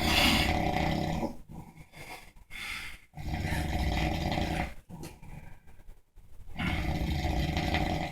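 A sleeping man snoring heavily: three long, loud snores about three seconds apart, with softer breathing sounds between them.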